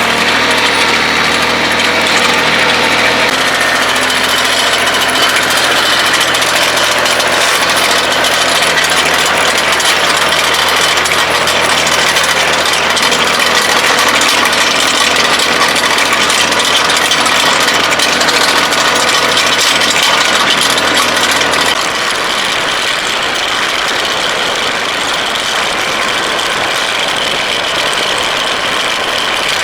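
Kioti CK2610 compact tractor's three-cylinder diesel engine running steadily under work. Its note shifts about three seconds in and drops a little quieter about 22 seconds in.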